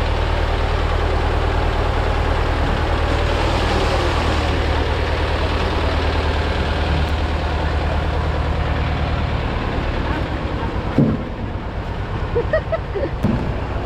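Engine of the vehicle hauling away the hand-picked corn, running steadily, then dropping away about ten seconds in.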